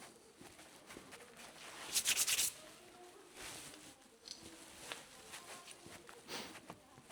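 Coilover parts and tools being handled during disassembly: a short clattering rattle of quick metallic clicks about two seconds in, then scattered light clicks and knocks.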